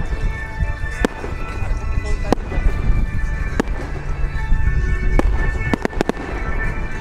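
Firework shells bursting with sharp single bangs about every second and a half, then three quick bangs in a row near the end, with music playing underneath.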